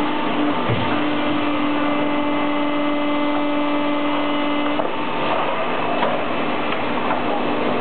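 Metalmeccanica 270-tonne injection moulding machine running: dense, steady machine noise with a hum-like tone that holds for about four seconds and then breaks off about five seconds in.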